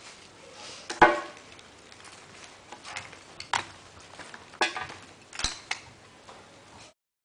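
Fire-resistant plaster casting mould being handled and picked at by hand: scattered scrapes, knocks and crumbling of plaster against the kiln-cast glass. The sharpest knock comes about a second in, and the sound cuts off suddenly near the end.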